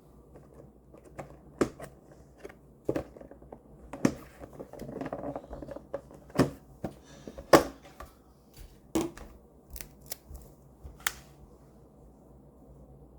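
Handling noise in a small room: about a dozen irregular clicks and taps, the loudest about two-thirds of the way through, with a couple of seconds of rustling near the middle.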